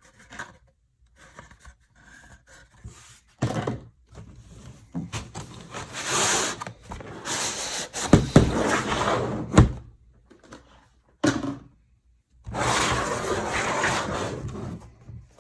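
A torque wrench and its packaging being handled and unpacked: long stretches of rubbing and scraping, two sharp clicks a second and a half apart near the middle, and a couple of short thunks.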